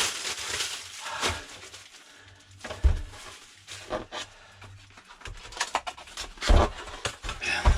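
Cellophane wrapping being pulled off a plastic tool tray set, crinkling and crackling, with a few louder knocks as the packaging is handled.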